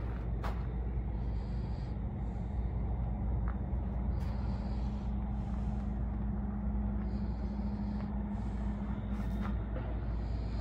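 Steady low rumble and hum of a running engine or motor, with a few faint ticks.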